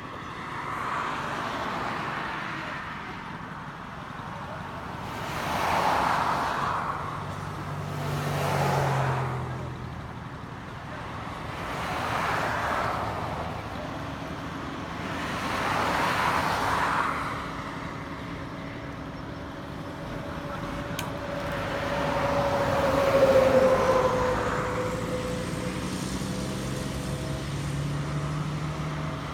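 Road traffic going by: a string of cars passing one after another, each rising and fading over a few seconds, about six in all. The loudest pass comes about two-thirds of the way through and carries a tone that drops in pitch as the vehicle goes by.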